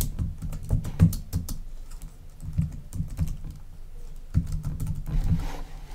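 Typing on a computer keyboard: a run of irregularly spaced key clicks, with pauses between bursts.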